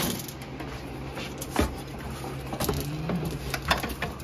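A riveted and glued sheet-metal bulkhead panel being worked loose from a car's interior: scattered knocks and scrapes of metal over a steady low hum.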